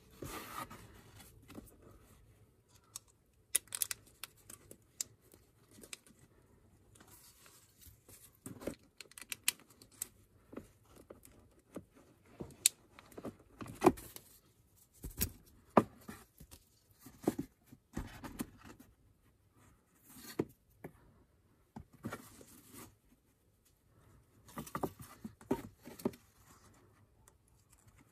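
Hands rustling and crinkling a folded nonwoven paper sheet while fitting it into a 3D-printed plastic mask clip, with scattered sharp clicks and taps from the plastic parts among the rustles.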